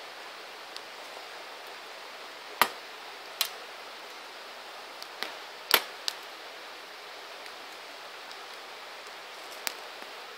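Wood campfire burning: a steady soft hiss with a handful of sharp crackling pops, the loudest a little past the middle.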